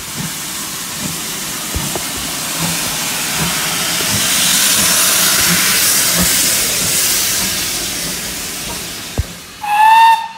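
Steam hissing loudly from GWR Manor class 4-6-0 locomotive 7812 as it stands, swelling and then dying away. Near the end, a short blast on a steam locomotive whistle.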